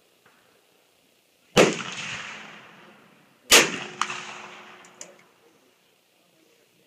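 Two .44 Magnum gunshots about two seconds apart, each with a long echoing tail. Two fainter sharp clicks follow the second shot.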